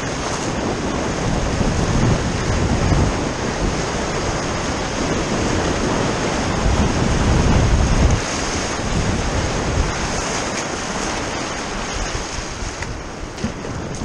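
Broken surf rushing and foaming around a sea kayak's hull as it rides through whitewater, with wind buffeting the microphone. The rush surges louder twice, about two seconds in and again around eight seconds.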